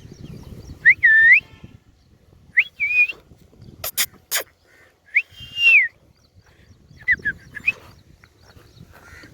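Indian ringneck parakeet giving a string of short whistled notes that rise and fall, with two sharp, shrill shrieks about four seconds in.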